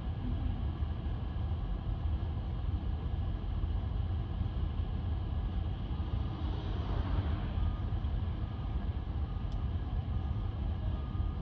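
City street traffic: a steady low rumble, with a vehicle passing about six to eight seconds in.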